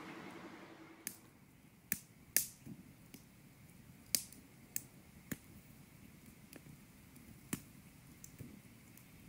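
Irregular sharp clicks or taps, about a dozen scattered over several seconds, some with a short ringing tail. A low steady hum fades out about a second in.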